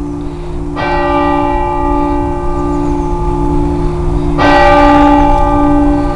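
Church clock bell striking the hour at midday: two strokes about three and a half seconds apart, each ringing on with long-sustained overtones over a low, wavering hum.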